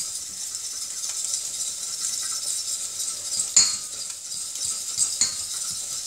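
A fork stirring thick polenta in a stainless steel saucepan, scraping and clinking against the pan, with one louder knock about three and a half seconds in and two more near the end. A steady high sizzle runs underneath.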